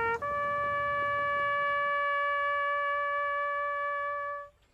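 Solo brass instrument playing slow, sustained notes: a short lower note, then a step up to a higher note held steady for about four seconds before it fades out near the end.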